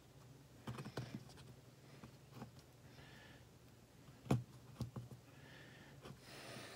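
Fingers pressing and working material over a plastic skull. There are faint handling sounds and a few light taps and knocks, the sharpest a little past the middle, with a brief rustle near the end, over a low steady hum.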